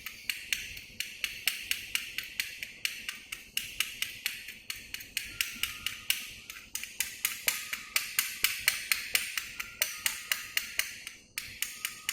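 Chipping hammer tapping slag off a freshly welded butt-joint bead: light, sharp taps at about four a second, with a short pause near the end.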